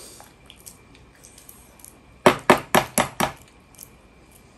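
Balut eggshell being tapped to crack it: five quick, sharp knocks within about a second, a little past the middle.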